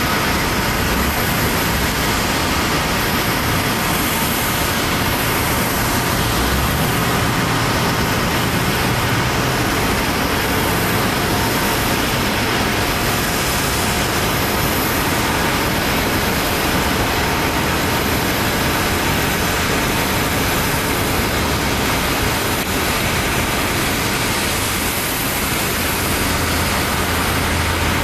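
Airbus A321neo's Pratt & Whitney geared turbofan jet engines running, a steady, loud rush of noise with a thin high whine on top that neither rises nor falls.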